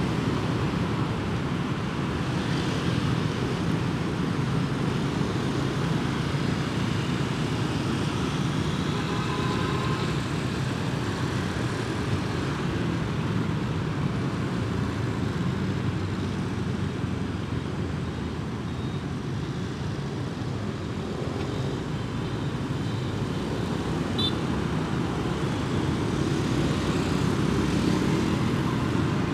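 Steady road rumble from riding a motorbike in dense scooter traffic: wind on the microphone mixed with the engines and tyres of the surrounding motorbikes.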